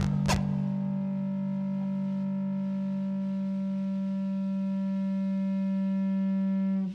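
A rock band ending a song: a last drum hit just after the start, then a final chord on distorted electric guitar held steady, cut off abruptly near the end.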